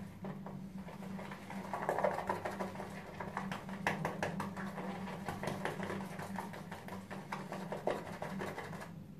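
Shaving brush whisked round a bowl, working shaving soap into lather: a continuous wet, crackly swishing made of many quick small clicks, over a faint steady low hum.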